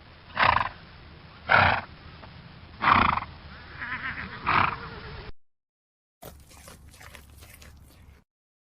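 Horse giving four short, loud whinnies about a second or so apart. After a cut, a quieter stretch of irregular clicking and rustling follows.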